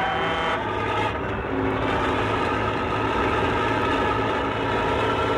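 Heavy lorry running at motorway speed, its air horn held in a long blast over the steady engine.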